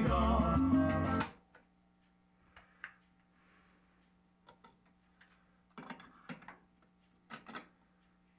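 Latin music with guitar playing through a vintage AKAI stereo system cuts off suddenly about a second in. After that, a faint steady hum with scattered clicks and knocks.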